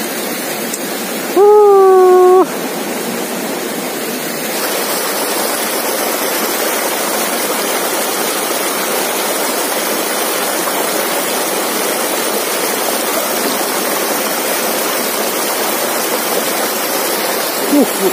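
Shallow rocky forest stream running over small cascades: a steady rush of water, louder from about four seconds in. About a second and a half in, a loud steady tone lasts about a second.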